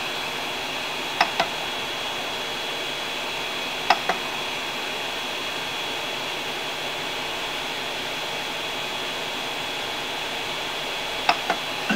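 Steady hiss, broken three times by a pair of short sharp clicks as the push-button control knob of a Creality Ender-3 3D printer is pressed and released.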